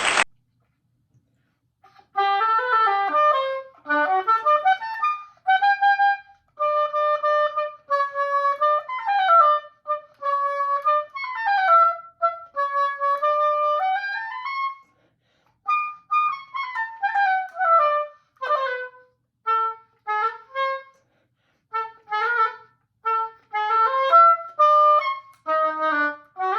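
Solo oboe played unaccompanied: a melodic passage of quick running notes and held notes, in phrases with short breaks between them, starting about two seconds in.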